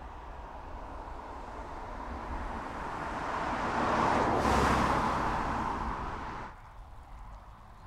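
Škoda Superb Combi estate car driving past, its tyre and engine noise swelling to a peak about four to five seconds in and then cutting off suddenly.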